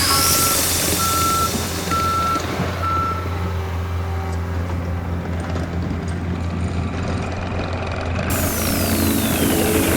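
Heavy construction equipment running steadily, with its backup alarm beeping several times over the first three seconds or so and then stopping: the machine is reversing. Near the end a falling whoosh leads into music.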